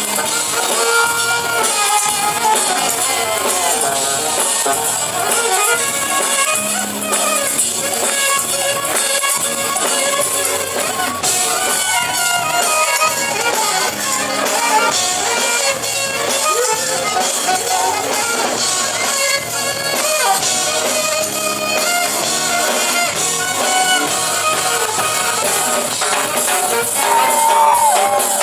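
Live band playing a funk-pop number, loud and continuous, with percussion and cymbals over pitched melody lines.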